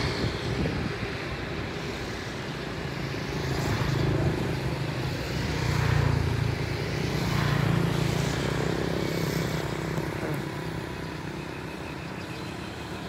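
John Deere 5050D tractor's three-cylinder diesel engine running steadily, its sound swelling and easing a few times.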